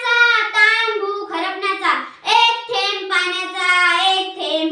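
A young girl singing unaccompanied, in long held phrases with short breaths between them.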